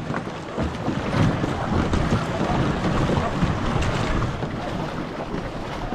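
Wind buffeting the microphone over water rushing and splashing around a two-person racing canoe under way.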